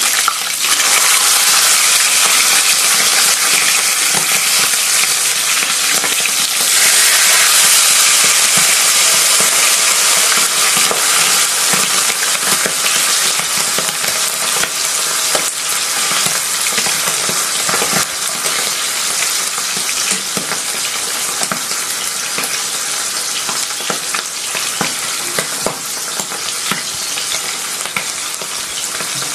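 Butterflied milkfish (dinaing na bangus) frying in hot oil in a pan, a continuous sizzle with many small crackling pops. It grows louder about seven seconds in, then eases off gradually.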